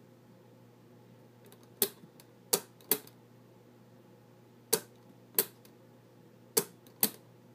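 Mosler 302 combination lock clicking as its dial is turned: seven sharp mechanical clicks at uneven intervals, some in close pairs.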